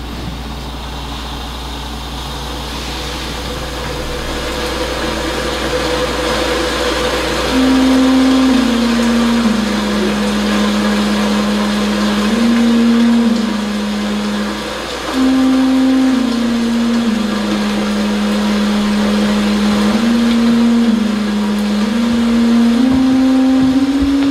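Theatre sound cue: a steady rushing noise swells up, and over it a low sustained tone plays a slow phrase of held notes stepping downward. The phrase repeats about three times from several seconds in.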